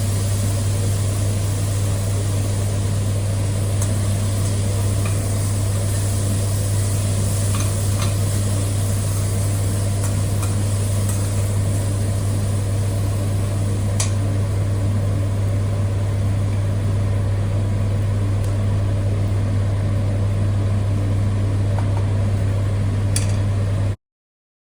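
A steady low machine hum with a few light clicks over it, cutting off abruptly near the end.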